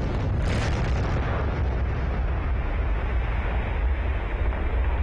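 Explosive rock blast on a mountainside: a rush of noise in the first second gives way to a steady deep rumble that carries on.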